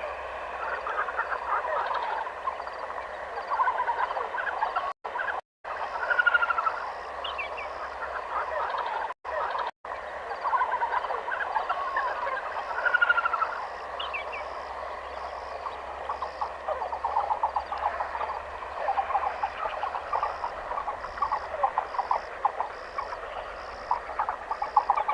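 Dense forest chorus of many birds calling and chirping over one another, with a steady, regularly repeated high chirp above. The sound drops out completely for brief moments twice, around five and nine seconds in.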